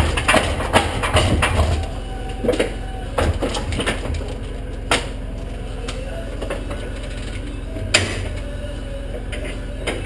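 An engine idling steadily, with a burst of metallic knocking and clatter for the first couple of seconds, then a few single sharp metal knocks.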